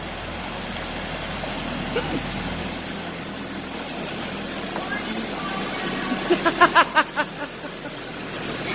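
Tractor engine running as the front-end loader tractor drives up and in through the open door, growing gradually louder. About six seconds in, a person's voice gives a quick run of short pitched bursts.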